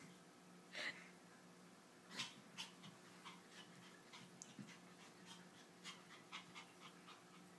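A toy poodle and a kitten playing: faint, short scuffling and breathing sounds, with slightly louder ones about one and two seconds in, over a low steady hum.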